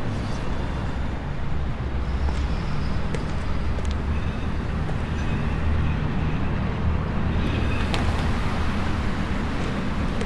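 Steady distant city traffic noise: a low, even hum of road traffic.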